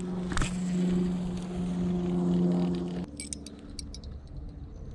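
A steady motor hum with a sharp click shortly after it starts. The hum cuts off abruptly about three seconds in, leaving faint scattered ticks.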